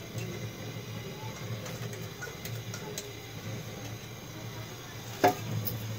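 Steady low hum with a few faint ticks, and one sharp knock about five seconds in.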